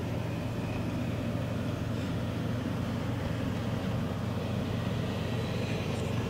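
A steady low mechanical hum, even in level throughout, with no distinct knocks or other events standing out.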